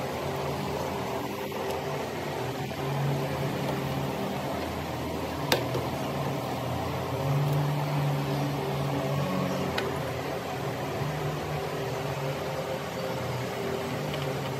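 Steady mechanical hum, with a sharp plastic click about five and a half seconds in and a fainter click near ten seconds as the water cooler's plastic panel is handled and screwed.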